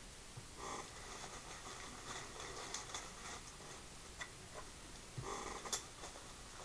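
Faint scattered clicks and taps of small plastic action-figure accessories being handled and set down on a tabletop, with a couple of soft handling rustles.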